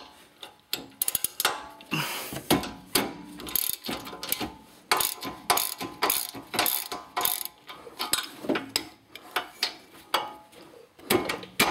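Ratchet wrench clicking in quick runs, with short pauses between strokes, as a rusty 15 mm rear brake caliper bracket bolt is backed out.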